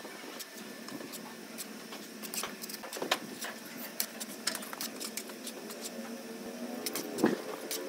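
Steel trowel scraping and tapping wet cement mortar off a hawk and onto a concrete column, a run of irregular sharp clicks and scrapes.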